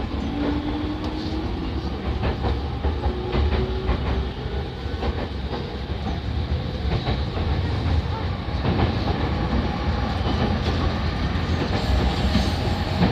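Inside a JR E231 series commuter train running on the Yamanote Line: a steady rumble of wheels on rail with repeated clickety-clack knocks. In the first few seconds the traction motors give a rising whine as the train picks up speed, which then fades into the rolling noise.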